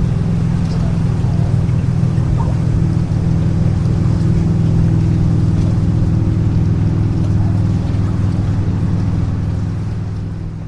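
Motorboat engine running steadily with a deep, even drone, fading away near the end.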